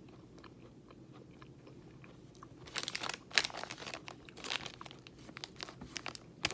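Crunching on a peanut butter chocolate granola cup, a crisp oat-and-peanut snack. It is quiet at first, then a quick run of crackling crunches starts about two and a half seconds in.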